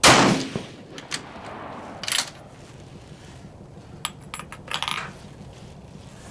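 A single rifle shot from a Gruning Precision bolt-action rifle, a sharp loud crack with a short echoing tail. It is followed by scattered metallic clicks and then a quick cluster of clicks and clinks about four to five seconds in, as the bolt is worked and the spent brass is ejected.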